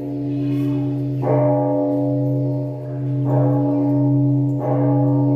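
Slow, meditative music: a steady low drone held throughout, with sustained bell-like tones entering again every second or two.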